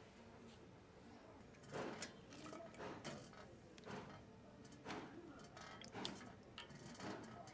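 Green chillies dropped into a metal pot of sliced bamboo shoot: a series of soft knocks and rustles, about one or two a second, starting about a second and a half in.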